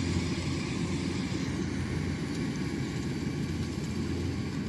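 Kubota rice combine harvester running steadily while cutting and threshing rice: a continuous engine drone with a low hum under a noisy mechanical whir.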